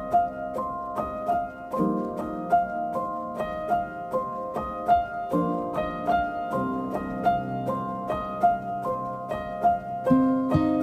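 Background music: a gentle melody of quick plucked or keyboard notes over a slow changing bass line.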